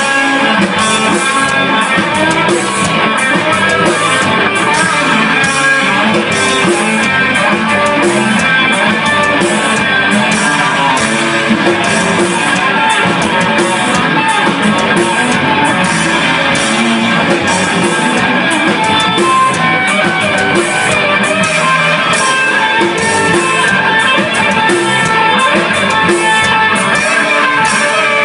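Rock music played by a band, guitar to the fore, loud and steady with no break.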